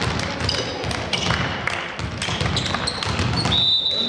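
Volleyball rally sounds in a sports hall: the ball thudding, sneakers squeaking briefly on the court floor, and a held high tone near the end.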